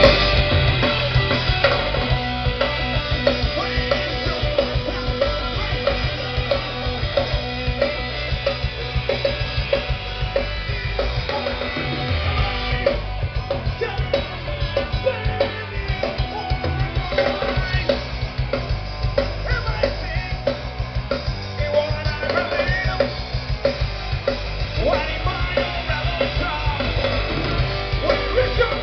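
A band's soundcheck played loud through a festival stage's PA system: a drum kit beating steadily with bass and guitar, the low end dropping out briefly about halfway.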